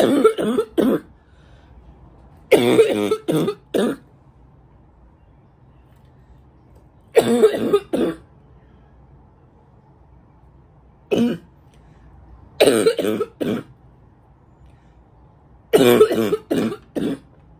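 A woman's congested, barking cough, which she puts down to allergies: six bouts a few seconds apart, most of three or four harsh coughs in quick succession, one a single cough.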